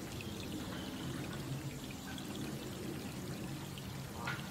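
Steady, gentle rain falling: an even wash of splashing water noise.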